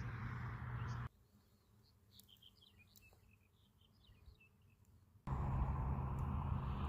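Faint small birds chirping in a quiet stretch, framed by a steady outdoor rushing noise with a low rumble that cuts out about a second in and cuts back in after about five seconds.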